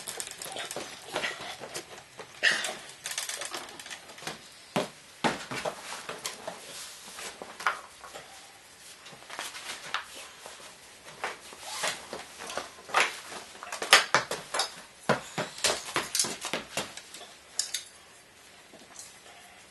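Handling noise: scattered clicks, knocks and light clatter as a hose is pushed onto a metal pipe on a home-made aluminium camera, then cloth rustling as a heavy black cloth is draped over the camera.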